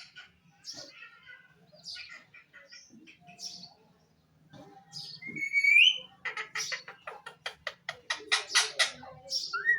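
Parrot calling: short scattered chirps and squawks, a rising whistle about six seconds in, then a fast run of harsh repeated notes, about five a second, for some three seconds, ending with another whistle.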